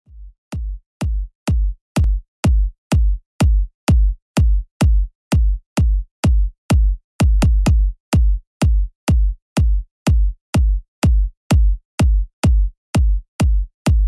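Electronic background music: a lone drum-machine kick drum beating steadily about twice a second, fading in at the start.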